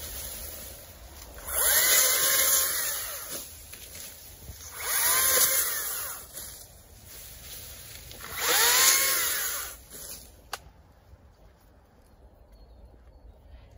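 Small Makita chainsaw cutting through Bana grass stalks in three short bursts. Each time the motor speeds up, then winds back down, with quieter pauses between cuts and a single sharp click near the end.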